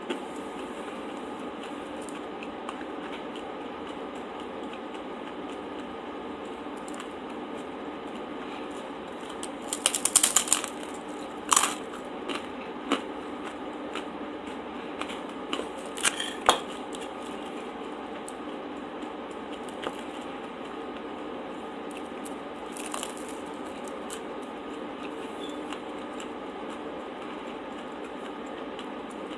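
Close-miked eating with no talking: a quick run of crisp crunches about ten seconds in, then a few more sharp crunches and clicks over the next several seconds, over a steady background hiss.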